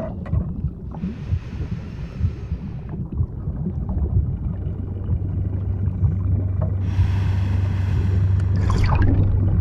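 Underwater diving ambience: a low rumble under two hisses of about two seconds each, like a scuba diver breathing in through a regulator, with a short bubbling gurgle near the end.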